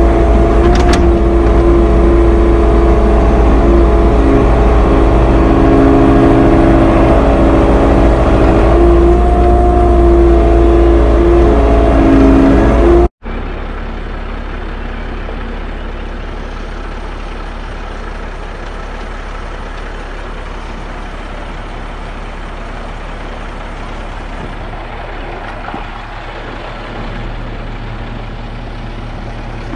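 Kubota KX080-3 excavator's diesel engine and hydraulics running loud, heard from inside the cab, with a steady whine that wavers as the boom and bucket move. About 13 seconds in, the sound cuts off abruptly to a quieter, steady engine running: a dump truck with its bed raised, tipping dirt.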